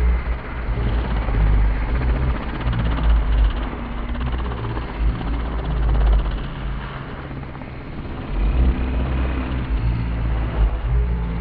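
SAB Goblin radio-controlled helicopter flying, its rotor and motor noise swelling and fading as it manoeuvres, with a brief dip a little past the middle.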